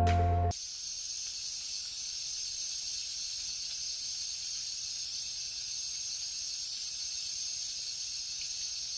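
Background music cutting off about half a second in, followed by a steady high hiss with faint irregular pulsing.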